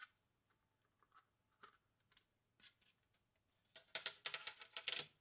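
Clear plastic blister pack holding two RAM sticks being handled: a few light ticks, then a dense crackling of the plastic about four seconds in that lasts just over a second.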